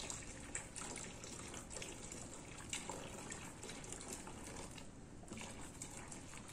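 A thin stream of bleach pouring from a plastic bottle into a large plastic basin of liquid soap mixture, with faint splashing as a wooden paddle stirs it.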